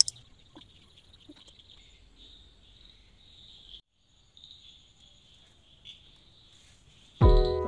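Crickets chirring in a faint, steady high-pitched trill, with a brief break about four seconds in. Near the end, loud music with chiming notes comes in over it.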